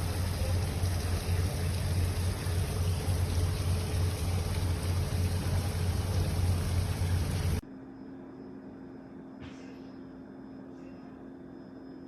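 Geek Chef 20-bar espresso machine's pump running with a steady low hum and hiss, stopping abruptly about two-thirds of the way through. A faint steady hum and a small click follow.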